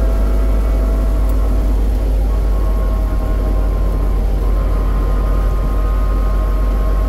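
Wind buffeting the microphone of a vehicle travelling along a road, a heavy steady rumble, with faint steady whining tones from the moving vehicle underneath.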